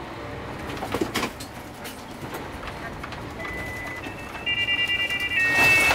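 Electronic warning alarm in a bus cab: a single high tone sets in about three and a half seconds in, then turns into rapid beeping in a few stepped pitches that grows louder near the end. It is the bus's pre-crash safety (PCS) system warning of an obstacle ahead.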